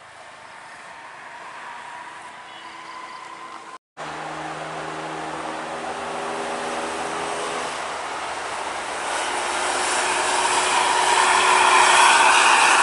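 Mercedes-Benz OH 1626 coach's diesel engine running as the coach drives past close by. After a quieter stretch and a sudden cut about four seconds in, a steady engine note comes in, and the engine and road noise build to their loudest near the end.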